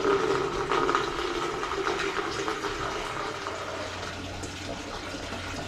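Water pouring steadily, loudest at first and easing off after a couple of seconds.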